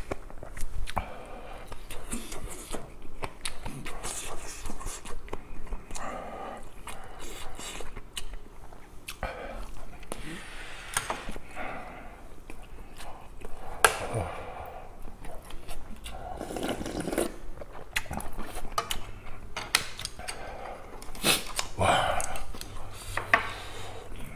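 Close-miked mukbang eating sounds: chewing and mouth noises, with frequent sharp clicks of chopsticks and a spoon against a metal pot and bowls; one click about two-thirds of the way through is louder than the rest.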